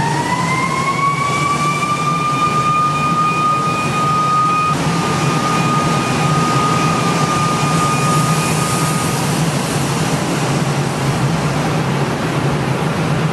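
Steady loud din of lead smelter machinery with a low hum. A high whine rises in pitch, holds steady, and fades out about nine seconds in.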